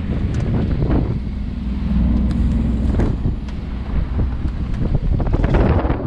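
Wind buffeting the microphone aboard a small sailboat under way in choppy water, over a low steady drone. A couple of water splashes against the hull come about one and three seconds in.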